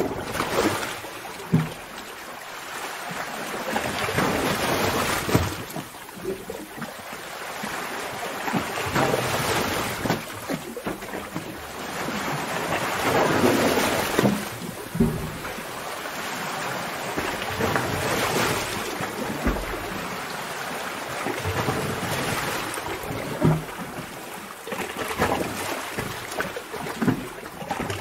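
Sea waves surging in and crashing against rocks in a cave, swelling and falling every four or five seconds, with sharp low thuds and splashes.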